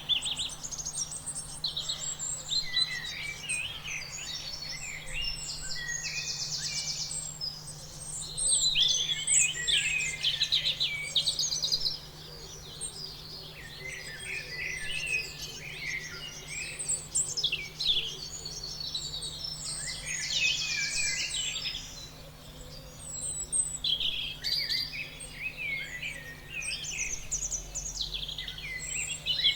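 A chorus of several birds singing and calling at once: a dense mix of short chirps, whistled notes and buzzy trills, with a buzzy trill returning every several seconds.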